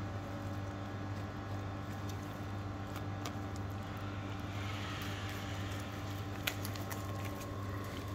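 A steady low machine hum with faint wet cutting and handling sounds of a knife slicing a monkfish tail fillet off the backbone on a plastic cutting board. There is a soft rasp of cutting about halfway through and a single sharp click about six and a half seconds in.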